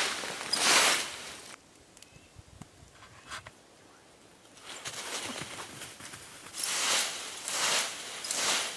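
Leaf rake sweeping through fallen leaves in repeated swishing strokes about a second apart, with a few seconds of near quiet in the middle.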